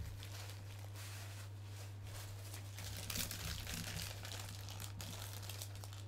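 Clear plastic bag crinkling and rustling as an action figure wrapped in it is handled, growing busier about halfway through, over a steady low electrical hum.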